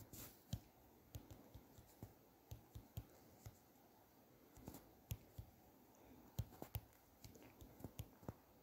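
Faint, irregular clicks of typing on a smartphone's on-screen keyboard, one short tap per key, with a pause of about a second partway through.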